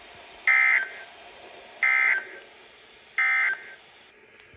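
Three short bursts of raspy EAS/SAME digital data tones, about a second and a half apart, from a NOAA Weather Radio broadcast: the end-of-message signal that closes the special marine warning.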